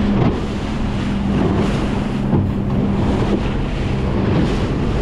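The engine of a small Highfield Sport 390 rigid inflatable boat running steadily under way through choppy sea. Wind is buffeting the microphone and water is rushing past the hull.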